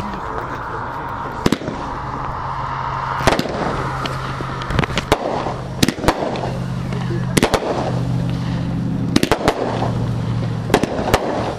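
Consumer fireworks firing: a dozen or so sharp bangs and pops at irregular intervals, some coming in quick pairs, as shots launch and burst in the air. A steady hum sits underneath.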